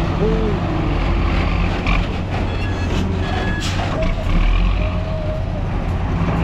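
Heavy dump truck's diesel engine running steadily, with a few short high beeps near the middle.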